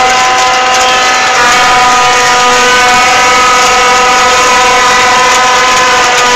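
Horns blown in a loud, steady drone at one held pitch, over a haze of crowd noise.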